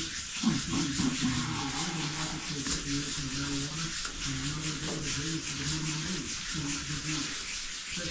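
Sandpaper glued to a sanding block being rubbed by hand over a wet, primed car body panel, wet-sanding in many quick repeated strokes that make a steady hiss. A low tone that steps up and down in pitch runs underneath.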